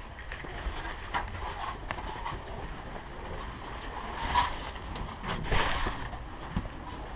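Low rumbling noise on the microphone, like wind or movement rubbing, with scattered sharp clicks and two louder rushing bursts, about four and a half and five and a half seconds in.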